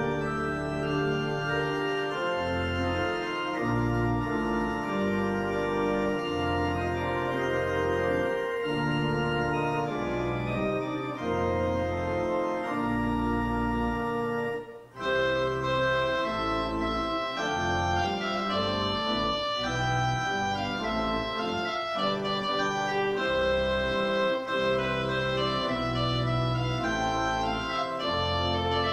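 Church organ playing a slow piece in sustained chords over long, low bass notes. The sound stops for a moment about halfway through, then the chords resume.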